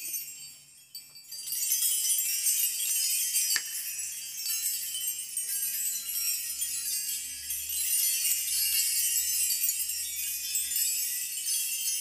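Key chimes, a cluster of metal car and house keys hung on lines from a wooden bar, jingling and tinkling as a hand brushes through them, heard with a long reverb added. The jingling starts about a second in and carries on as a dense, high shimmer.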